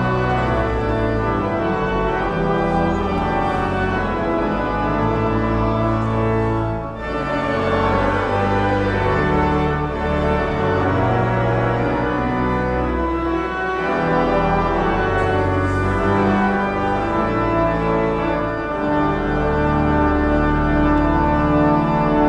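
Pipe organ playing sustained, full chords that change every second or so, with a brief break about seven seconds in.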